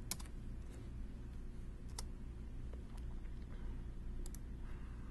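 A handful of single computer keyboard key presses, sharp separate clicks about a second apart, over a steady low hum.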